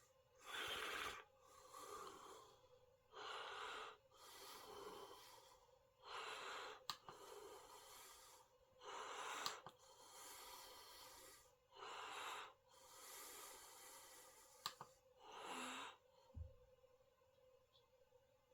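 A person breathing close to the microphone, faint, slow and regular, about one breath every three seconds, with a few faint clicks.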